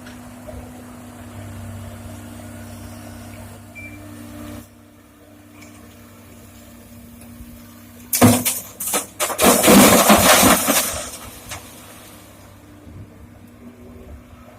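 A diesel engine hums steadily, dropping off about four and a half seconds in. About eight seconds in comes a loud clattering crash, lasting about three seconds, of stones being dumped from an excavator bucket into a dump truck's steel bed.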